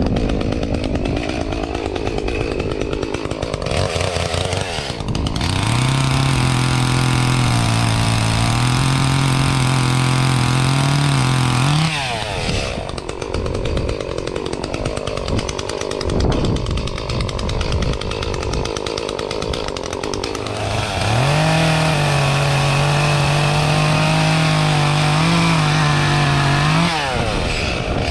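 Echo CS-352 two-stroke chainsaw run up and held at high speed for several seconds at a time, twice, while cutting, dropping back between cuts and revving up again near the end.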